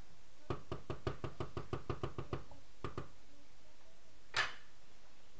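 A wooden spoon knocking against a stainless steel cooking pot: a fast, even run of about seven knocks a second for around two seconds, then two more. A single louder, brighter clatter follows near the end.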